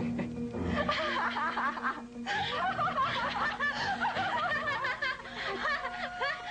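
A person laughing in a long run of snickering laughter over soft background music.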